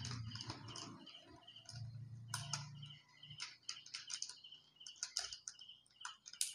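Plastic lure packaging being handled: crinkling bags and light clicks of clear plastic boxes. A steady high chirping repeats about three times a second underneath.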